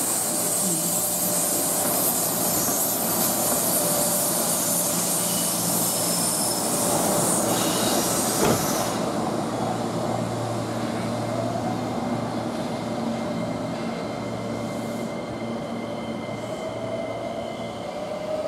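EF66 electric locomotive running light past at slow speed: steady running noise with a strong high hiss. The hiss drops away about eight and a half seconds in, leaving a lower steady hum, and a rising whine builds near the end.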